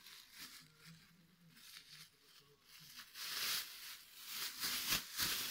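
A thin clear plastic bag crinkling and rustling as it is opened and handled, faint at first and louder and crackly from about halfway, with a few sharp crackles near the end.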